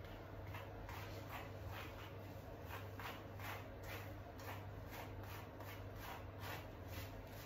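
Brush strokes through a puppy's wet, knotted coat, a short rasp about three times a second, as the tangles are worked loose. A steady low hum sits underneath.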